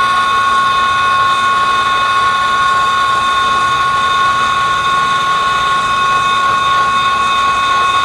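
A steady, high machine whine over a hiss, holding one pitch without change.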